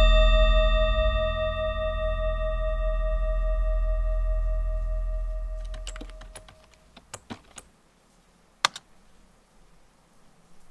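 A ringing, bell-like tone over a low drone, part of the film's score, fades away over the first six seconds or so. Then come scattered clicks of typing on a computer keyboard, with one louder keystroke near the end.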